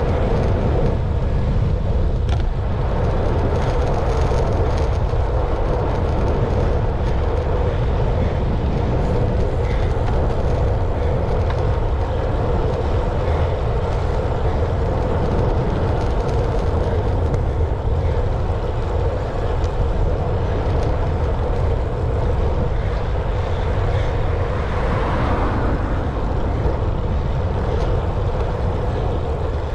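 A vehicle running steadily: a constant loud rumble with a steady hum over it.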